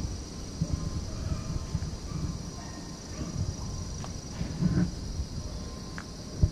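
Steady high-pitched insect chorus, like crickets, with irregular low rumbles and thumps on the microphone.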